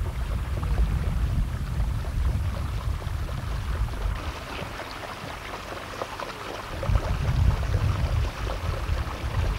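Wind buffeting the microphone: a gusty low rumble with hiss above it. It eases in the middle and gusts up again about seven seconds in.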